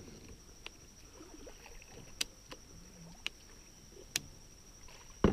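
About five light, sharp clicks and knocks, spaced irregularly, from handling gear on a plastic sit-on-top fishing kayak, over a thin steady high whine.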